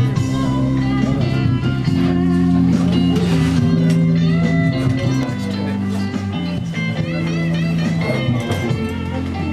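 Background music led by guitar, with steady held notes throughout.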